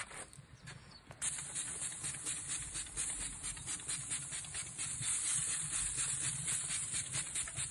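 Meat sizzling on a hot smoker grate: a steady crackling hiss of many fast small pops, starting abruptly about a second in at a cut.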